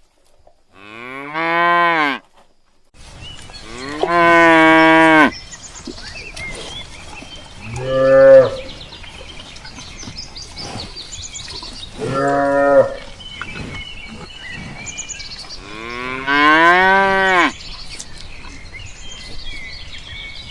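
Cattle mooing: five long, loud moos a few seconds apart, some deeper and some higher-pitched, from more than one cow.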